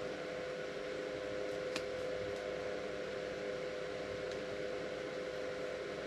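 Steady hum and hiss with one held tone, unchanging throughout, and a single faint tap about two seconds in.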